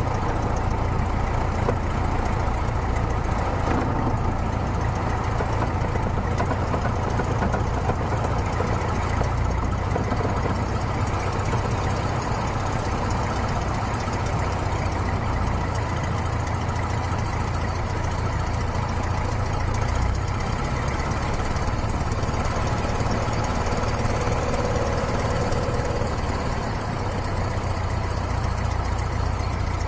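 Cessna 150's Continental O-200 four-cylinder air-cooled engine idling steadily while the plane rolls slowly along the runway, heard from a camera mounted outside the cabin.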